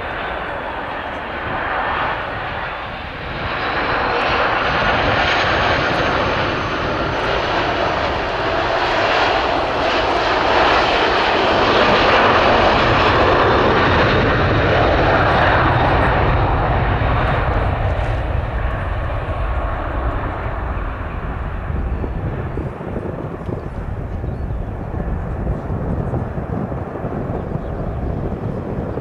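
Boeing 757-200 freighter's jet engines going past. The sound swells to a peak about halfway and then eases off. Early on a thin whine rises and falls back.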